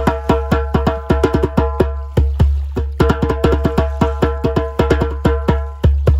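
Goblet hand drum played with bare hands in a Kpanlogo rhythm: quick strikes, several a second, ringing tones and slaps, with an occasional deep bass stroke.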